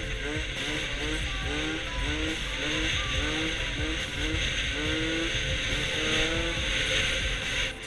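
Small scooter engine revved up again and again in quick throttle blips, about two rising revs a second, as the rider holds the scooter in a wheelie, with rushing wind noise. The sound changes abruptly near the end.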